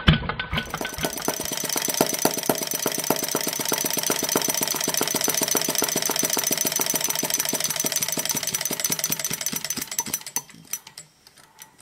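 Maier single-cylinder butane model gas engine running, with a rapid, even sharp clicking from its piezo-crystal spark ignition firing each cycle. Near the end, out of fuel, it slows and dies away.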